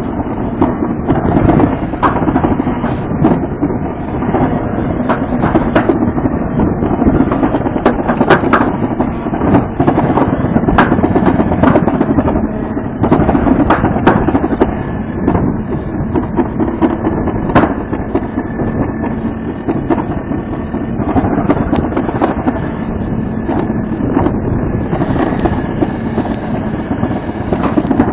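Toboggan sled running fast down a metal trough track, a continuous rumbling rattle with frequent sharp knocks.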